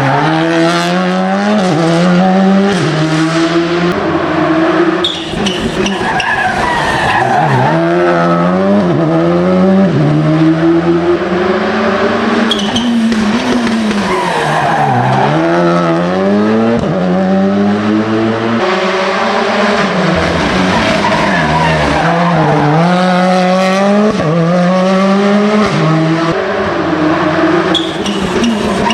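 Rally car engines at full throttle on a special stage, revving up through the gears in quick stepped climbs, with sharp drops in pitch around 5, 15 and 22 seconds in as they brake and downshift.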